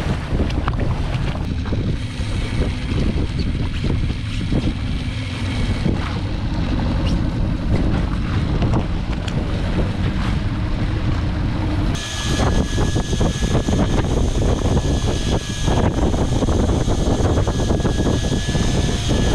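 Water rushing along the hull of a moving boat, with heavy wind buffeting the microphone. About twelve seconds in the sound changes and a thin, steady high whine sits over the rumble.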